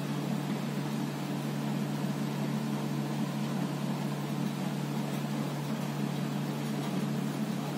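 A steady low hum with an even hiss over it, unchanging throughout, like a fan or appliance running.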